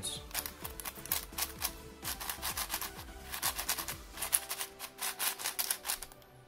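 A stickerless QiYi QiXing S 7x7 speed cube being turned by hand: rapid, uneven plastic clicking and clacking of layers sliding and snapping into place, stopping shortly before the end. The cube is a little dry and loose out of the box. Soft background music underneath.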